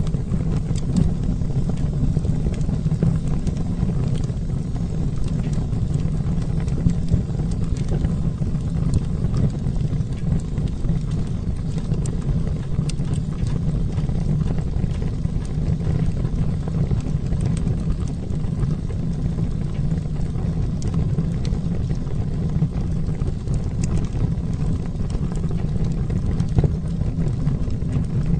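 Wood fire burning in a fireplace: a steady low roar of flames with scattered faint crackles.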